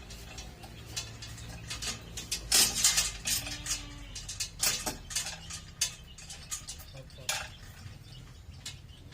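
Irregular metal clinks and clanks from a chain block's chain and hook as it hoists a generator engine, loudest in a cluster about two and a half seconds in, with a low steady hum underneath.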